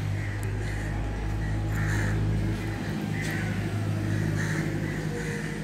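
Crows cawing every second or so over a steady low hum, like an engine idling.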